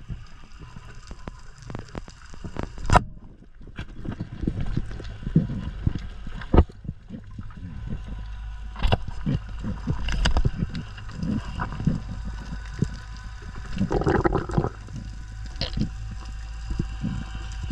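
Water gurgling and sloshing, with many scattered sharp clicks and knocks over a steady low rumble.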